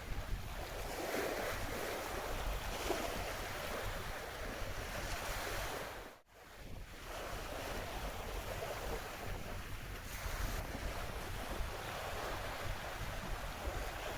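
Sea waves washing against a rocky shore, with wind buffeting the microphone. The sound cuts out abruptly for a moment about six seconds in, then resumes.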